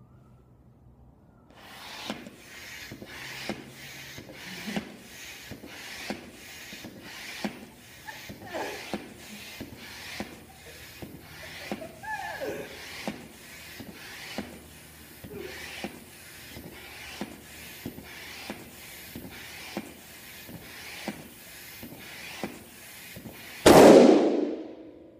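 Hand-operated floor air pump being worked in steady, repeated strokes, each a short rush of air, as it inflates a latex balloon. Near the end the over-inflated balloon bursts with a single loud bang, the loudest sound of all.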